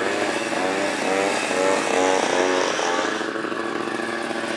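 Vintage two-stroke snowmobile engine racing by, its pitch swinging up and down several times as the throttle works. About three seconds in it gives way to a steadier engine drone.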